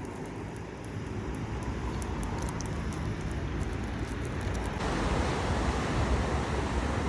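Steady outdoor background noise, heavy in the low end, that gets louder and fuller about five seconds in.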